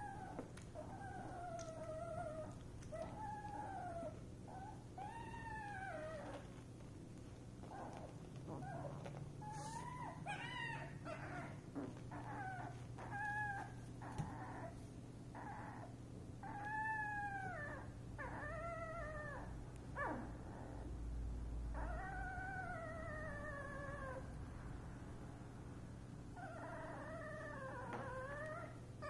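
Nine-day-old puppies crying: many short, high, mewing whines that rise and fall, one after another, with several overlapping near the end.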